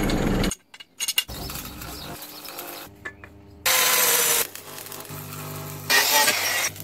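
Angle grinder cutting steel bar in two short, loud bursts, the first about halfway through and the second near the end. A quieter steady machine noise runs between them. A loud stretch of machine noise at the very start cuts off abruptly.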